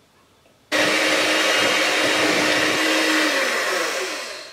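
Electric hand mixer switched on under a second in, running steadily at speed with its beaters whisking a thick chocolate batter. Near the end it is switched off and its motor winds down, the pitch falling as it fades out.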